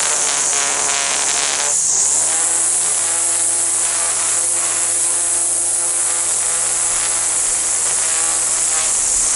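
String trimmer engine running at high throttle, its line whipping and cutting overgrown grass along a sidewalk edge with a steady whine and hiss. The revs dip briefly about two seconds in, then pick back up.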